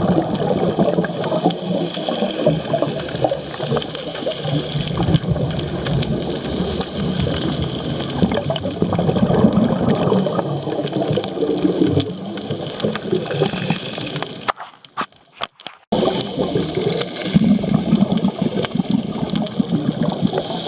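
Underwater bubbling and gurgling from a scuba diver's exhaled breath, a dense steady crackle of bubbles that breaks off briefly about three-quarters of the way through.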